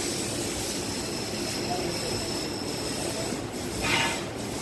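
Steady background hum of running machinery, with a short higher-pitched sound about four seconds in.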